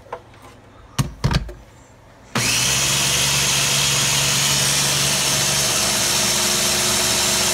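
Two sharp clacks about a second in, then a small electric food processor's motor starts with a sudden jump in loudness and runs steadily, blending runny egg and coconut-flour batter.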